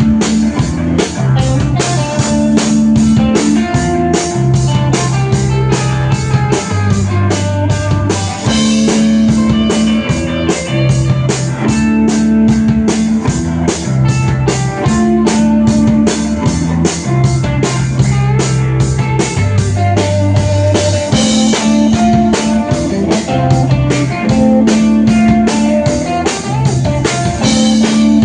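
Live rock band playing an instrumental passage: guitar, bass and drum kit over a steady beat, with the bass moving through a repeating pattern of held notes.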